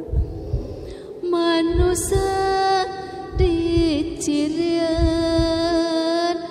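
Wordless singing in a high voice, holding long notes that bend down in pitch at the ends, over low drum beats about once a second. The voice comes in about a second in.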